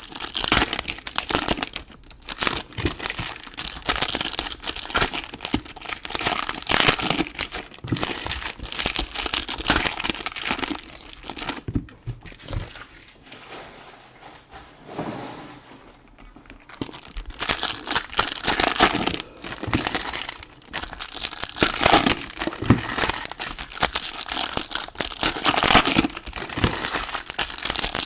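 Trading-card pack wrappers crinkling and being torn open by hand, with cards shuffled in between; the crinkling eases off for a few seconds near the middle, then picks up again.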